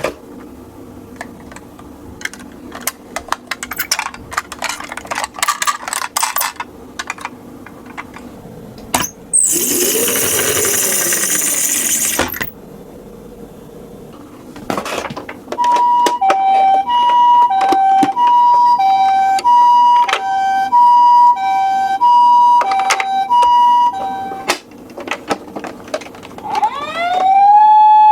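Toy ambulance's electronic siren sounding a two-tone hi-lo pattern, switching between a high and a low note about twice a second for around nine seconds. Near the end it changes to a rising wail. Before the siren there are small plastic clicks and rattles from the toy cars, and a loud rushing hiss for about three seconds around ten seconds in.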